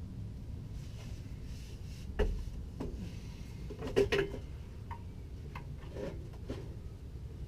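Metal exhaust pipe knocking and clanking against the underside of a Nissan 240SX as it is lifted into place: a knock about two seconds in, a louder cluster of clanks around four seconds, then a few light clicks, over a steady low background rumble.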